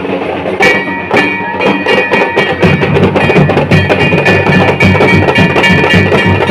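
Dhol drumming with a shehnai playing over it. The shehnai's held notes come in about half a second in, and the drumming grows fuller and denser about two and a half seconds in.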